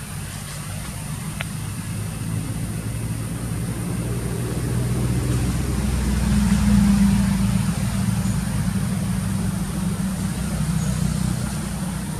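A motor vehicle's engine running, growing louder to a peak about seven seconds in and then fading as it passes by.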